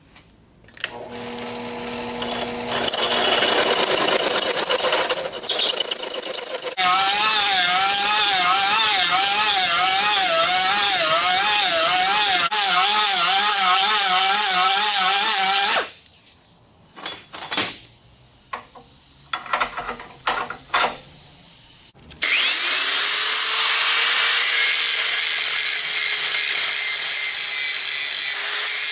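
Drill press running a step bit through steel square tube, then a handheld die grinder with a burr deburring the hole, its pitch warbling as the load changes. After a few knocks of handling, an angle grinder spins up with a rising whine about 22 seconds in and grinds the steel tube.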